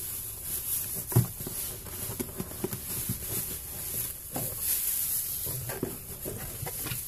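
Plastic packing wrap rustling and crinkling as it is handled and pulled out of a cardboard box, with scattered small knocks and a sharper knock about a second in.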